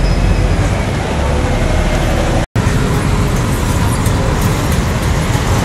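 Street traffic: cars and buses running past in a steady, loud din with a deep rumble, cutting out for an instant about two and a half seconds in.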